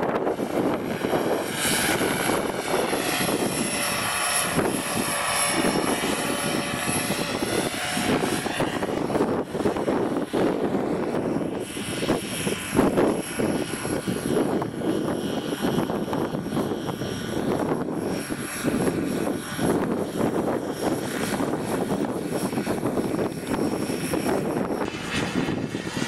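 Radio-controlled model helicopter in flight, its rotor and motor whine rising and falling in pitch as it manoeuvres and passes back and forth.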